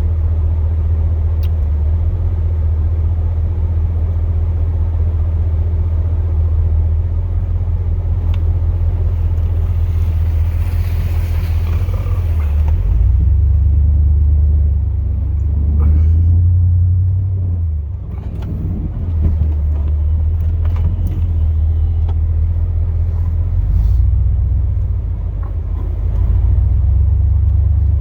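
Chevrolet Silverado's 8.1L big-block V8 running under way as a steady low rumble, its note shifting a few times. There is a brief hissing rush about ten seconds in.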